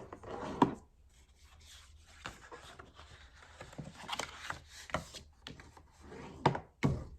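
Cardstock being folded along its score lines and creased down by hand, a run of paper rubbing and crackling with a few sharp taps.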